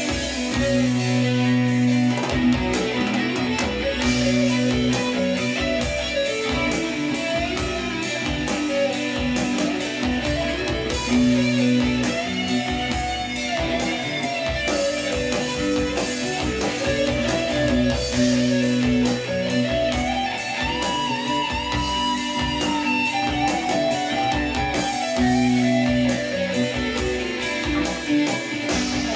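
Rock music with a lead electric guitar playing a bending, sliding melody over steady bass and drums, played back through a Tridit StormBox Lava portable Bluetooth speaker.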